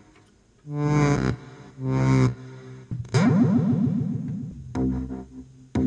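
Sequential Prophet Rev2 analog polyphonic synthesizer sounding a patch: single notes about a second apart, each fading away, one about three seconds in warbling rapidly in pitch.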